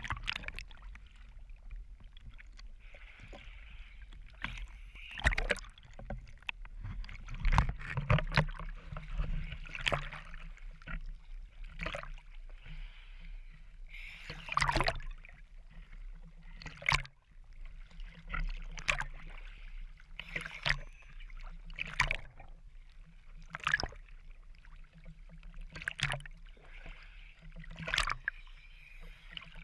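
Choppy sea water slapping and splashing against a camera bobbing at the surface, irregular splashes every second or two over a constant wash of water, with a low steady hum underneath.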